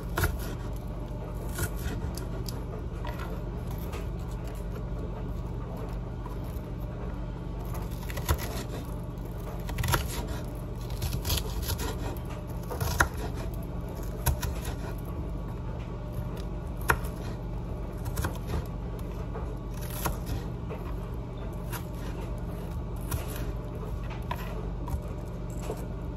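Knife cutting onions on a cutting board: irregular knocks of the blade on the board, usually a second or more apart, over a steady low hum.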